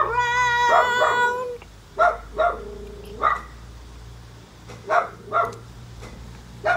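A dog barking: one long drawn-out whine at the start, then a series of short, separate barks and yips.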